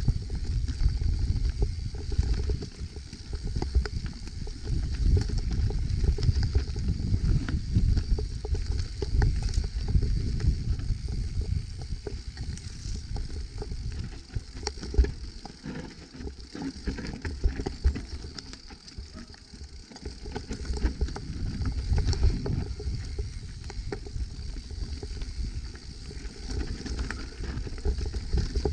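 Evil Insurgent full-suspension mountain bike riding fast down a dirt trail. The tyres rumble over the ground, and the bike keeps rattling and knocking over the bumps, louder and quieter as the terrain changes.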